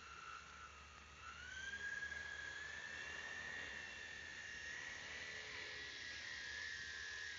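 Quadcopter's electric motors and propellers whining as it lifts off the ground and climbs. The pitch rises about a second and a half in, then holds steady.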